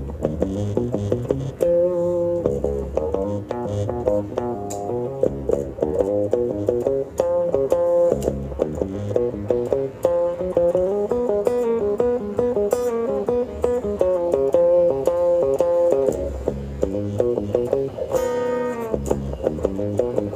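Background music: a busy melody of quick plucked notes over a bass line.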